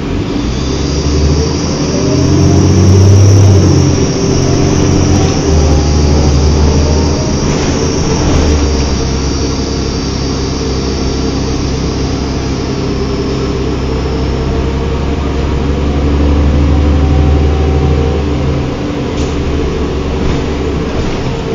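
Diesel bus running under power: the 2005 New Flyer D40LF's Cummins ISL inline-six diesel with its Allison automatic transmission. The engine note rises over the first few seconds, then holds steady. A high whine runs through the first dozen seconds or so.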